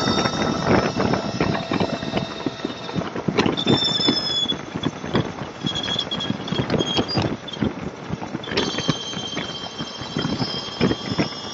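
Wind buffeting on a motorcycle-mounted camera's microphone at freeway speed, uneven and gusty, with a thin high whistle that fades about three seconds in and returns strongly near the end.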